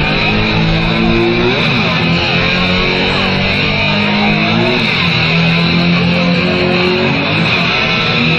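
Live rock band playing loudly, led by electric guitar with notes that slide up and down in pitch.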